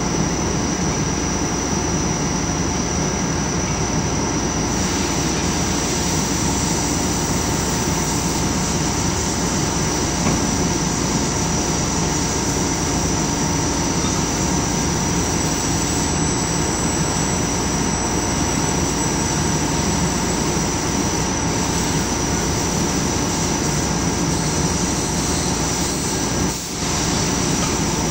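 Heavy machine-shop machinery running steadily, with a constant high whine over it. The level dips briefly shortly before the end.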